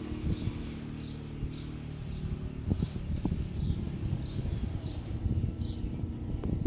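Insects trilling steadily outdoors, with a short falling chirp repeated about one and a half times a second. An engine fades out in the first half second, and low knocks and rumbles come and go.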